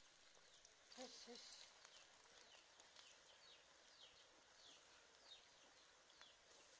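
Faint sizzling of puli pitha frying in oil in an aluminium karai, with a bird calling in short, falling chirps about twice a second. About a second in, two short, low-pitched calls sound.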